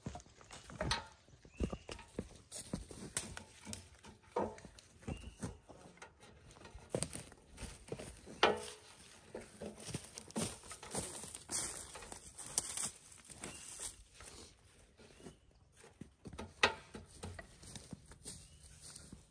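Footsteps with irregular knocks and clatter, some of them ringing briefly, and a short high chirp that recurs every few seconds.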